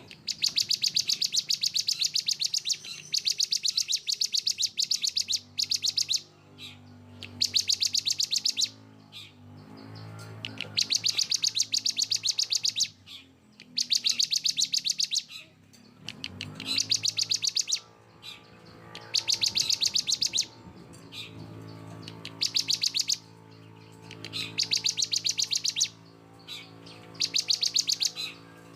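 Songbird song in repeated bursts of very rapid, dense, harsh high notes ('tembakan rapat dan kasar'), each burst lasting one to two seconds, with short pauses between: a masteran track for training cage birds.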